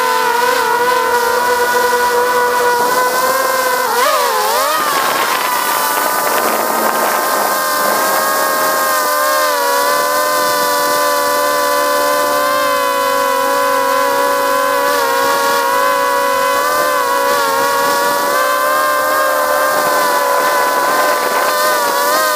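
Quadcopter drone's electric motors and propellers whining steadily, heard from right under the rotors. The pitch wobbles up and down briefly about four seconds in, then holds steady with small drifts.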